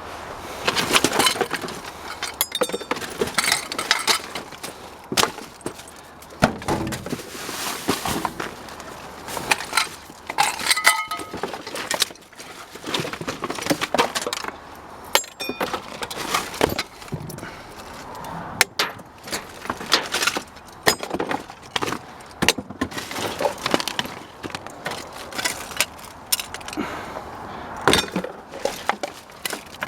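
Scrap and trash being rummaged through and shifted around in a dumpster: irregular clatter, clinks and knocks, with a short metallic ring about eleven seconds in.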